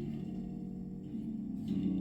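Instrumental music with no singing: a held chord fading out, and a new chord struck near the end.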